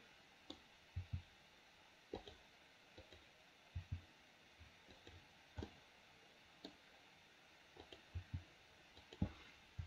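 A dozen or so faint clicks of a computer mouse and keyboard keys, scattered irregularly, some in quick pairs.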